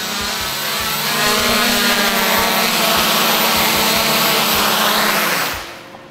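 Quadcopter's four brushless outrunner motors (NTM 28-26 1000KV) with 8x4.5 props buzzing in flight, then throttling down and cutting off about five and a half seconds in as it lands.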